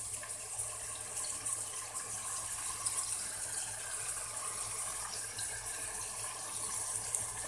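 Chicken pieces and onions sizzling in hot oil in an aluminium pot, a steady high hiss as the chicken is fried until it changes colour.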